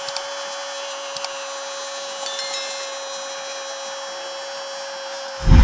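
Football commentator's long, single-pitch goal cry ('Gooool'), held for about six seconds and sliding down in pitch at the end, over the noise of the stadium crowd celebrating. A loud low thump comes near the end.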